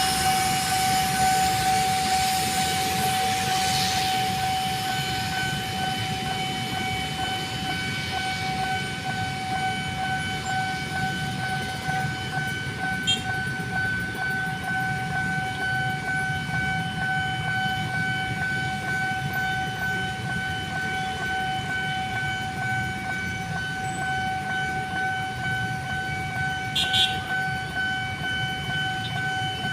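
Train passing over a level crossing: the low rumble of the train runs under a single steady horn tone held unbroken, the long horn blast.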